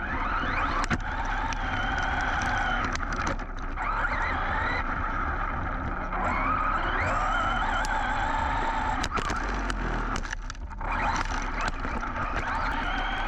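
Team Associated Rival MT10 RC monster truck's brushless motor whining up and down with the throttle, with its tyres scrabbling through dirt and sharp knocks from the chassis and suspension. It is heard from the truck's own onboard GoPro in a waterproof housing, with the whine dropping away briefly twice.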